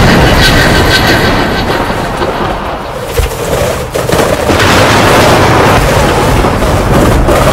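Loud cartoon sound effects: a dense rumbling, booming noise that eases a little about three seconds in and builds again.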